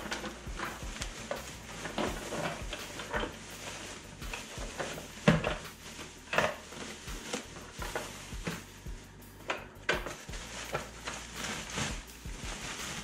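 Plastic packaging bags rustling and crinkling as parts are unwrapped and pulled out, with scattered knocks of hard plastic parts being handled; the loudest knock comes about five seconds in.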